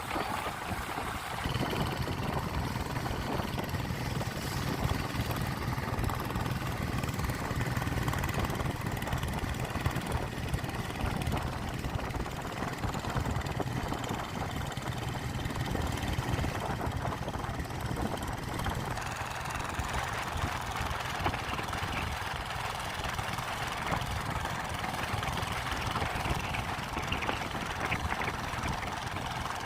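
Small boat's engine running steadily under way, a constant low drone over rushing wind and water noise.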